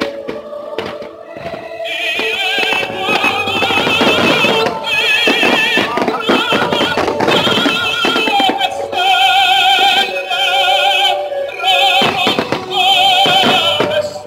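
Show music with a high, operatic-style voice singing with wide vibrato, coming in about two seconds in, mixed with the bangs and crackle of aerial firework shells bursting. The bursts are densest in the first half and again near the end.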